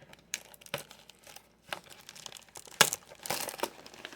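Packaging of a trading card box crinkling and tearing as it is opened by hand: a few sharp snaps, then a longer crinkle about three seconds in.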